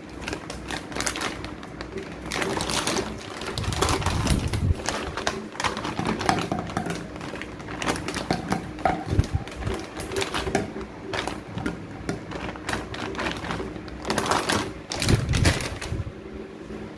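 Plastic packet crinkling and rustling as dried red jujubes are tipped out of it, with irregular clicks and taps as the dates drop onto a ceramic plate; the crackling comes in louder spells about four seconds in and again near the end.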